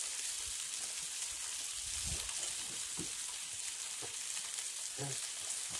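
A steady high hiss, like sizzling, with a few faint short knocks over it.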